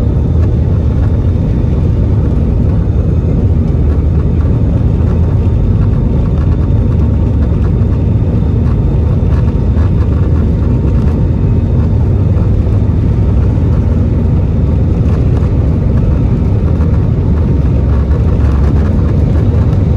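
An Airbus A320-216's CFM56 engines running at takeoff thrust, heard from inside the cabin over the wing, together with the rumble of the wheels on the runway. It is a loud, steady noise with a faint steady whine on top.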